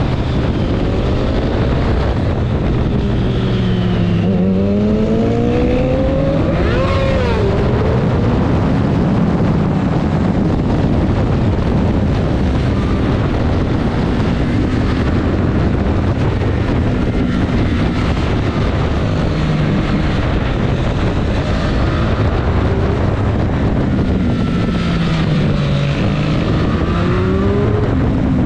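Triumph Street Triple RS 765's three-cylinder engine heard onboard at track pace, its pitch falling off and climbing again with the throttle through corners, over steady wind and road noise on the microphone.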